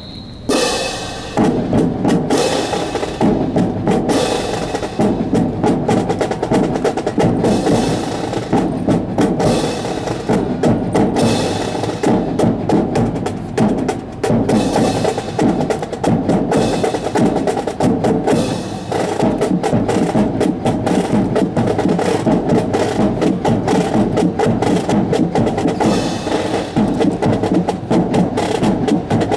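March music with snare drums and drum rolls, starting about a second in, with many sharp clicks running through it.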